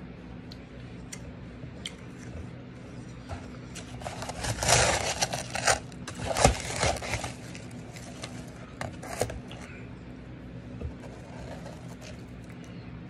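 Shaved ice crunching: a cluster of loud crunches in the middle, then a couple of fainter ones a little later.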